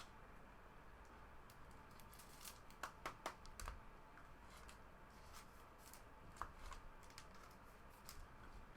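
Faint rustling and light clicks of trading cards and packaging being handled, with a small cluster of sharper clicks about three seconds in and another about six and a half seconds in.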